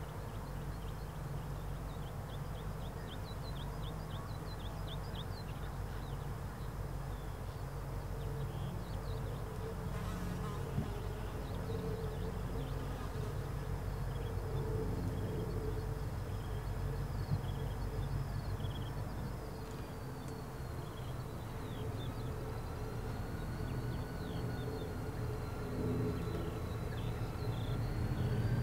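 Two diesel-electric locomotives, Pacific National BL and 81 class, working slowly up a grade with a 40-hopper grain train: a low engine drone that grows louder as they approach, with a slow gliding whine in the second half. Short bird chirps come over it.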